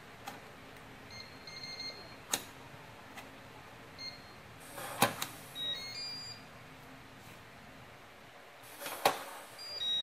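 LogHome LH5000 digital door lock being operated: electronic beeps and a short rising chime of tones, with three sharp clicks, the last two each coming just after a brief whir as the motorised latch moves.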